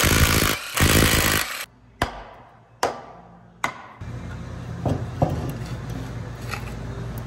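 Cordless impact wrench rattling in two loud bursts on a forklift's wheel nuts. Then three sharp hammer blows a little under a second apart, and a steady low hum with a few light knocks.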